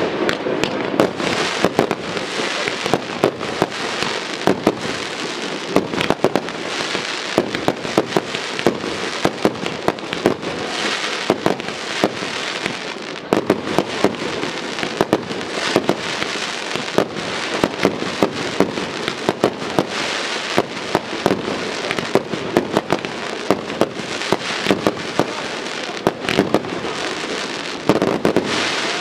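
Fireworks display in a dense barrage: many sharp bangs of bursting shells, several a second, over a steady crackle that never lets up.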